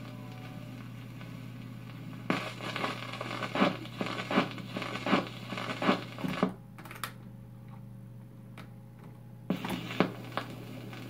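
1949 Admiral 6F11-N radio-phonograph at the end of a record: a steady low amplifier hum with a run of clicks and crackles from the stylus and record-changer mechanism as the tone arm trips and swings back to rest, then a few more mechanical clicks near the end.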